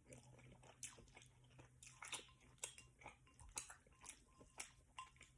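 Faint chewing close to the microphone: a person eating beef lo mein noodles, with soft, irregular wet mouth clicks two or three times a second.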